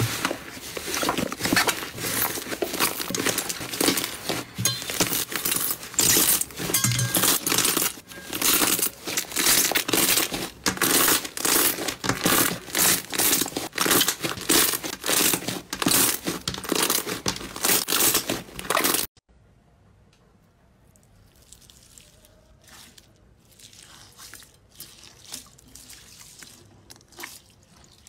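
Hands squeezing and kneading thick, airy slime, trapped air popping and crackling in quick, dense runs. About two-thirds of the way through it cuts off suddenly to much quieter, sparse soft clicks and squishes.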